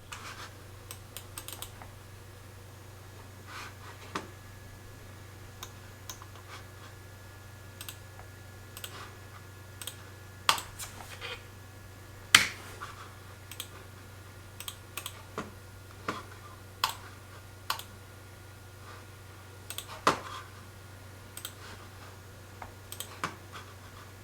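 Scattered, irregular clicks and taps of small objects being handled, a few louder knocks among them, over a steady low electrical hum.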